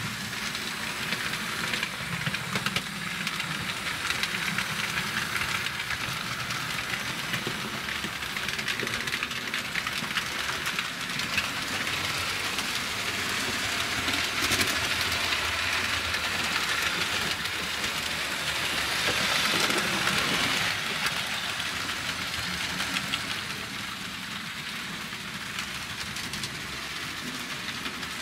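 Model railway trains running on the layout: a steady rushing rattle of small wheels on the track with fine ticking. It swells louder in the middle and eases off near the end.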